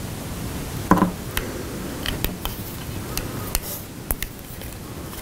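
Small, sharp clicks and taps of a metal-alloy clip-on flip-up sunglasses mount being handled and clipped onto plastic eyeglass frames, with a short, louder knock about a second in.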